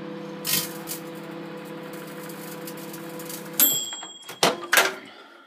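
Microwave oven running with a steady hum, with two sharp crackles from the game disc inside about half a second in. After about three and a half seconds the hum stops with the microwave's end beep, followed by a few loud clicks of the door being opened.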